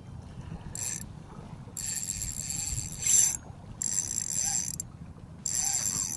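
Spinning reel's drag buzzing out line in four bursts, the longest about a second and a half, as a hooked fish runs against it.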